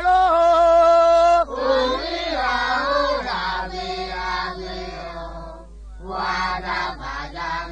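Song sung call-and-response style: a single voice holds a long note, then several voices answer together for a few seconds, and a lead voice comes back about six seconds in.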